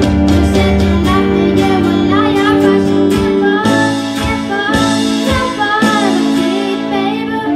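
A school band playing a pop song live, with children singing the melody over guitar and drums. The drum hits thin out about three seconds in while the singing carries on over held chords.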